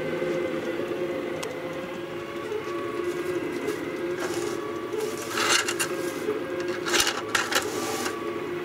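Rostock delta 3D printer running a fast print: its stepper motors whine in shifting tones as the print head darts about. A few short bursts of rustling noise come in the second half.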